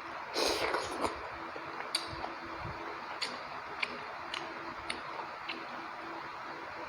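Close-up chewing of rice and chicken curry: a wet mouthful sound about half a second in, then short sharp mouth clicks and smacks roughly twice a second, over a faint steady hum.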